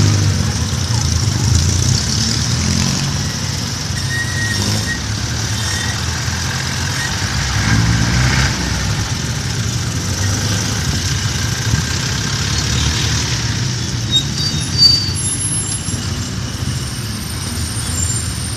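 Motorcycle engine of a tricycle running as it creeps through slow traffic, mixed with the steady noise of the surrounding vehicles. A few brief high squeaks come in over the last few seconds.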